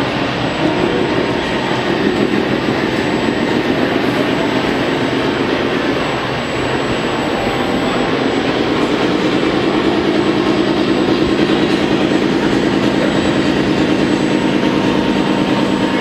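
Radio-controlled construction models at work: a Liebherr 960 excavator model digging and loading and a tipper truck model driving, giving a steady mechanical motor drone over a noisy hall background. The drone gets louder and steadier about halfway through.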